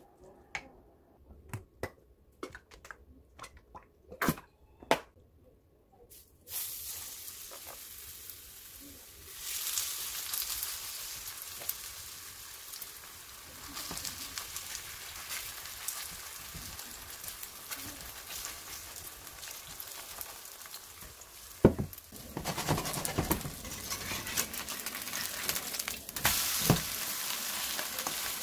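A spoon clicks and scrapes against a stainless steel mixing bowl of squid pancake batter, then the batter sizzles as it fries in a pan from about six seconds in, getting louder as more goes in. A metal spatula knocks against the pan a couple of times near the end.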